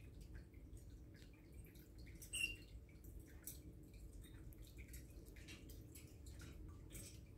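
Faint, scattered clicks and taps as an African grey parrot climbs about its metal play stand, with one short louder sound about two and a half seconds in.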